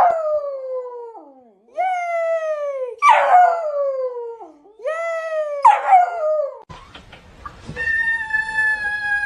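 A dog howling: five drawn-out calls, each sliding down in pitch, then one long steady note near the end.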